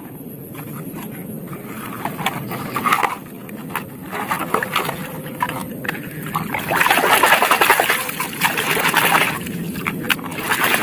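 Muddy water splashing and sloshing as a plastic toy car is swished through a shallow puddle, strongest in the last few seconds.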